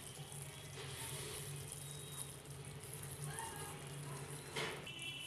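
Yogurt-based eggplant curry sizzling and bubbling in a nonstick pan as a spatula stirs it, with one sharper scrape or knock about four and a half seconds in. A steady low hum runs underneath.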